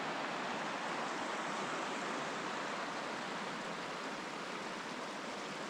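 A small creek running over rocks: a steady, even rush of water.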